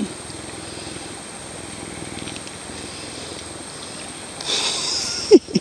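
Puma purring close up, a steady low pulsing rumble. Near the end comes a brief rustle and one short, loud, falling squeak.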